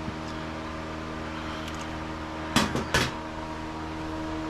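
Two sharp clunks about half a second apart, over a steady mechanical hum.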